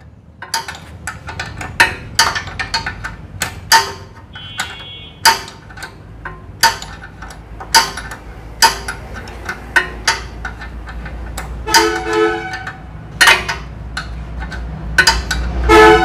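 Steel ring spanner clinking on the nuts of a reaper's cutter bar as they are tightened: sharp metallic clicks about once a second, a few ringing briefly.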